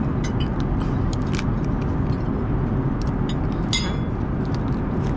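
Steady low roar of an Airbus A380 cabin in flight, with scattered light clicks of tableware and one brighter clink a little under four seconds in.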